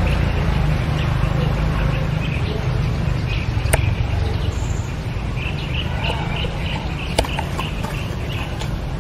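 Outdoor ambience: a steady low rumble with birds chirping in short bursts, and two sharp clicks, one near the middle and one a couple of seconds later.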